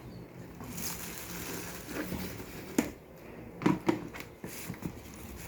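Handling of a new blender's plastic parts and packaging: light rustling with several sharp clicks and knocks, the loudest a little under three seconds in and a cluster shortly after.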